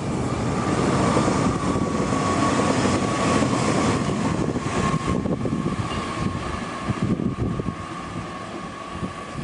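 Taiwan Railway local train crossing a steel railway bridge: a loud rumble of wheels on rails with a steady high whine above it. The rumble swells about a second in and eases near the end.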